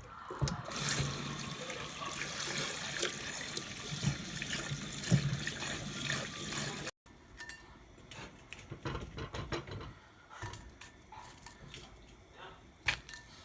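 Water running from a kitchen tap, a steady rush for about seven seconds, then it stops abruptly. After that come scattered light clicks and knocks of kitchen handling.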